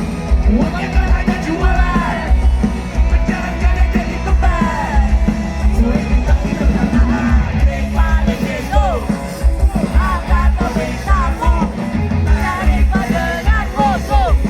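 Rock music played loud, with a heavy low end and a vocalist yelling and singing over the band.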